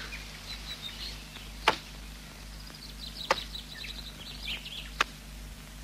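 A pick striking the ground three times, evenly spaced, as a man starts digging for a well. Birds chirp lightly in the background.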